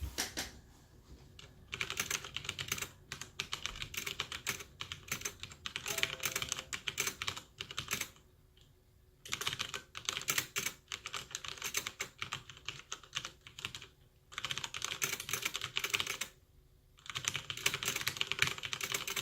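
Typing on a Magicforce 68 mechanical keyboard with unmodified brown tactile switches: rapid keystrokes in bursts of a few seconds, with brief pauses between them.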